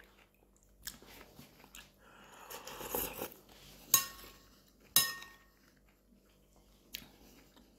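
Metal spoon clinking against a porcelain soup bowl about four times, the clinks near the middle loudest with a short ring, and a sip of hot soup slurped from the spoon shortly before them.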